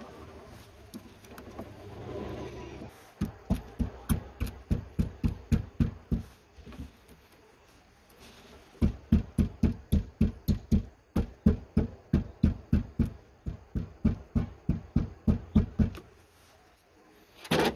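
Hand wrench working a nut on a car battery terminal clamp: quick, even clicking strokes about three or four a second, in two runs with a pause between. A short, louder clatter comes near the end.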